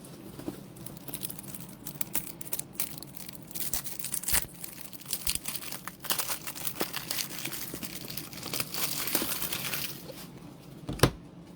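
Foil trading-card pack wrappers crinkling and tearing as packs are opened, with cards being handled: irregular crackling that is busiest in the second half, and one sharp tap near the end.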